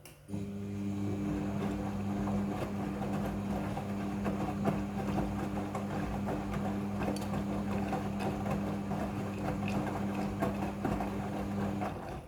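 Midea front-loading washing machine with a motor switching on about a third of a second in. It gives a steady electric hum with a rattling, gurgling noise over it, then cuts off just before the end.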